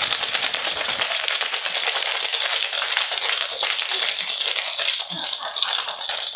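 Cocktail shaker being shaken hard: a fast, continuous rattle of ice against the tin.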